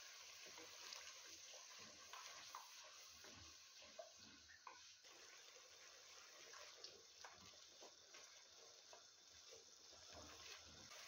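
Tomato paste cooking in hot spiced oil in an aluminium pot, sizzling faintly and bubbling with scattered small pops, while a wooden spoon stirs it.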